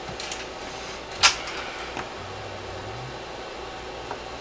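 Handling sounds from a cable and connector being worked by hand on a workbench, over a faint steady hiss: one sharp click a little over a second in, a few softer taps, and a brief faint low hum near the middle.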